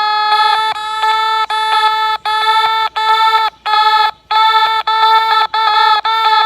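Electronic emergency alert alarm tone: a loud, buzzy tone held at one pitch, broken by short gaps about every two-thirds of a second.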